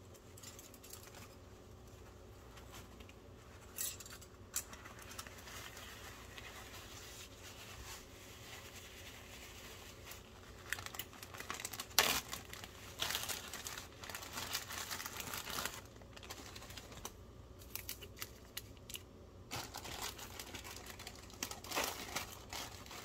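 Plastic zip-top bags crinkling and rustling as plastic cutlery and paper napkins are packed into them, in intermittent bursts, the loudest about halfway through.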